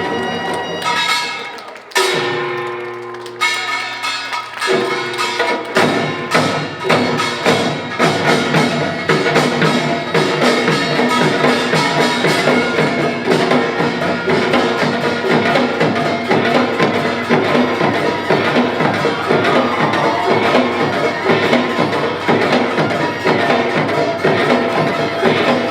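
Pungmul percussion ensemble of gongs and drums playing. After a short lull with a few sustained ringing tones, dense rapid metallic strikes and drumbeats pick up about six seconds in and carry on steadily.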